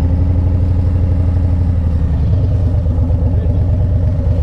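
2023 Harley-Davidson Road Glide ST's Milwaukee-Eight 117 V-twin engine running steadily while the bike is ridden, a low, even engine note with a fast pulse.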